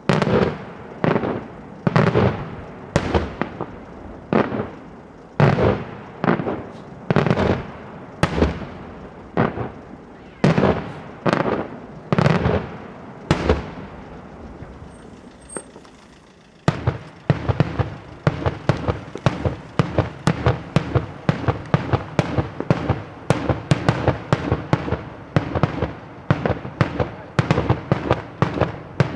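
Daytime fireworks display: loud bangs from bursting shells, going off about once a second. After a short lull they give way to a faster, denser string of several bangs a second.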